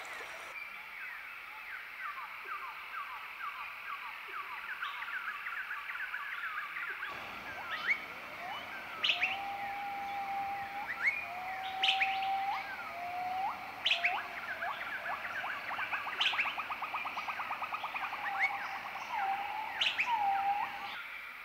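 Several birds calling and singing together: a busy mix of quick chirps and sweeping notes, a clear whistle repeated several times that flicks upward at its end, and a fast trill in the second half.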